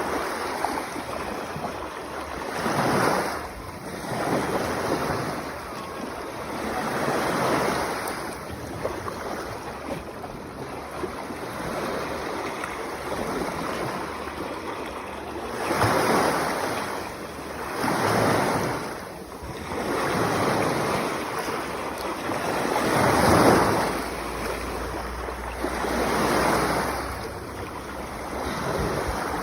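Sea waves washing onto the shore, the noise swelling and ebbing with each surge every few seconds; the loudest surge comes about two-thirds of the way through.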